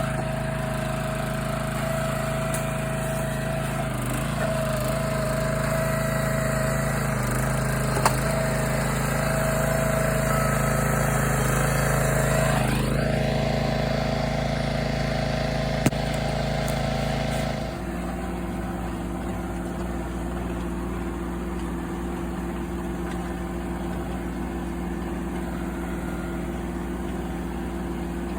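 Engine running steadily, with a brief rising pitch a little before the middle; just past the middle the note drops to a different, slightly quieter steady drone, as if one engine stopped or changed speed. Two sharp clicks stand out along the way.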